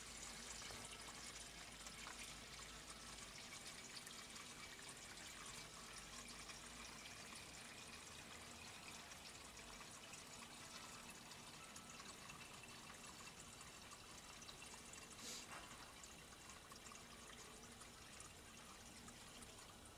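Engine coolant from a Caterpillar 3412 diesel pouring steadily into a container as the cooling system is drained; a faint, continuous trickling.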